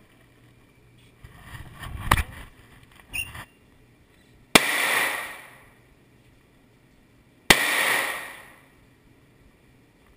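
Two gunshots about three seconds apart at an indoor shooting range, each followed by about a second and a half of ringing echo off the range. A few quieter clicks and knocks of handling come before the first shot.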